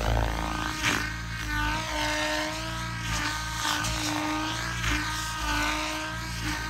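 Large RC helicopter flying 3D aerobatics: the rotor blades whoosh while the drive whines, its pitch wavering up and down as the model flips and swings past. There are brief louder swells as it turns.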